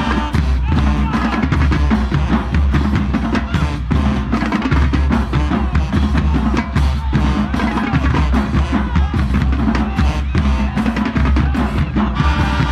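High school marching band drumline playing a fast cadence on bass drums and snares, with the band's horns coming back in near the end.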